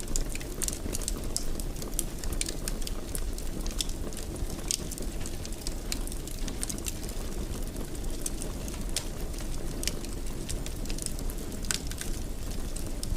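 Wood fire in a fireplace crackling: frequent irregular sharp pops and snaps over a steady low noise of the burning.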